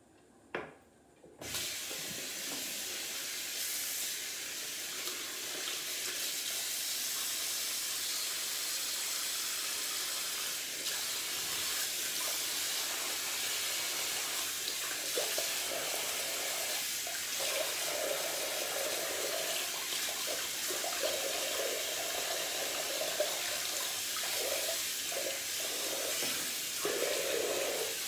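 A short click, then a bathroom sink tap turned on about a second and a half in, running water steadily into the basin; from about halfway through, the stream splashes unevenly, as something is moved through it.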